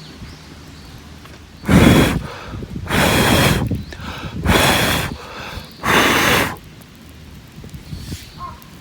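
Four hard puffs of breath blowing, each about half a second long and roughly a second and a half apart.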